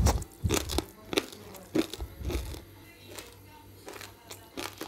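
Crispy tahdig, the golden rice crust, crunching as it is bitten and chewed: a run of sharp crunches, loudest in the first two and a half seconds, then fainter ones.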